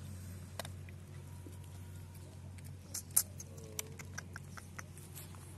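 A puppy eating dry dog kibble from a plastic cup: scattered, irregular crunches and clicks, with a cluster about three seconds in, over a steady low hum.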